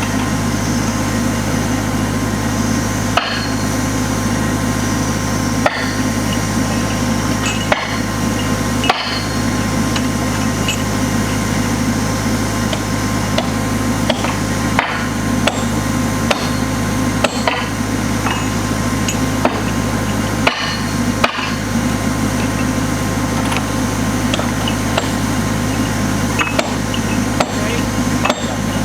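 Sharp single hammer strikes on railroad track spikes, one every second to several seconds at an irregular pace, over the steady drone of a running engine.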